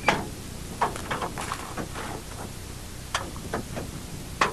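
A series of sharp knocks and clunks from gear being handled and set down beside a vehicle, the loudest right at the start and just before the end.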